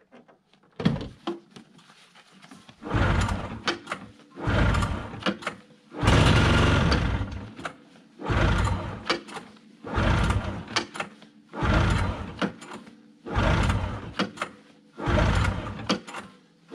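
Recoil pull starter of a 1990 Yamaha V-Max 540 snowmobile yanked about eight times, roughly one pull every second and a half. The engine turns over on full choke, with fuel poured into the cylinders, but does not catch.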